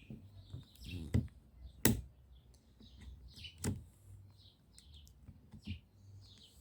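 Sharp plastic clicks and knocks of a car side-mirror part being lined up and pressed onto its tabs, the loudest about two seconds in. Birds chirp in the background.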